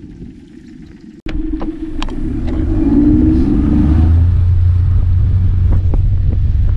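Outboard motor driving a small fishing boat up to speed. The engine noise grows and settles into a loud, steady low running.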